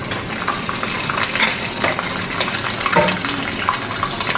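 Steady crackling sizzle of food frying, with the clicks and scrapes of a wooden spoon scooping meat sauce from a pan onto spaghetti in a foil tray.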